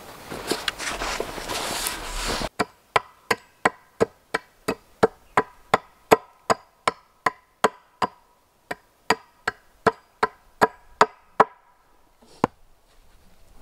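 Axe chopping into the end of a wooden pole stood on a stump chopping block: about two dozen sharp, evenly paced strokes, some three a second, each with a short woody ring, then a pause and one last stroke. Before the strokes begin there are a couple of seconds of noisy hiss.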